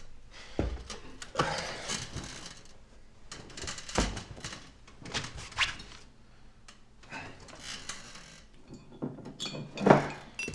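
Scattered rustles, knocks and small clinks of a person shifting about on a metal-framed futon, with a heavier thump about four seconds in and a louder one near the end.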